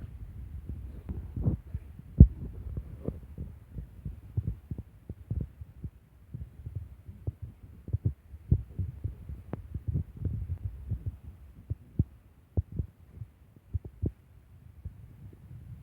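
A dog sneezing over and over: short, sharp sneezes in an irregular run, one to three a second, the strongest about two seconds in, over a low rumble. The fit is put down to pollen caught in its nose.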